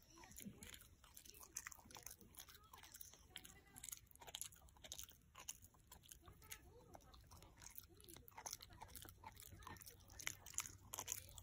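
A miniature schnauzer gnawing on a knotted white chew: faint, irregular crunches and clicks of its teeth on the chew.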